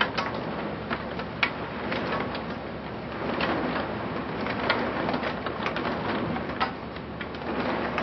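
Heavy wind-driven rain pouring down in a steady rush, with irregular sharp taps of drops or hail striking the window glass.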